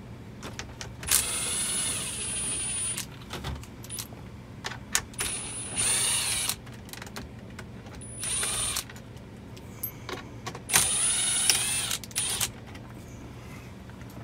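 Milwaukee Fuel cordless power tool spinning out the 7 mm bolts that hold a truck's radio screen, in four runs of a second or two each with a whine that rises and falls. Small clicks and taps of handling come between the runs.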